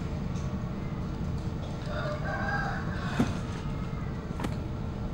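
A rooster crowing once, a wavering call of about a second, over a steady low rumble. Two sharp clicks follow, about a second apart.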